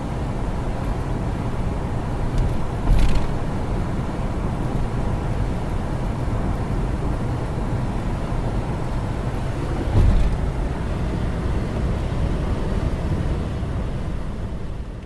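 Steady road and engine noise of a moving car heard from inside the cabin, a low rumble, with a thump about three seconds in and another about ten seconds in. It fades out near the end.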